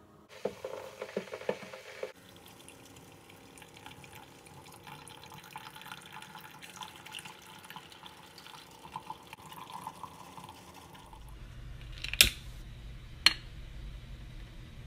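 Keurig single-cup coffee maker: a few clunks and clicks as the pod goes in and the lid is shut, then the machine brews, coffee streaming and trickling into the mug for about nine seconds. Near the end, two sharp clicks about a second apart from a long utility lighter being sparked to light a candle.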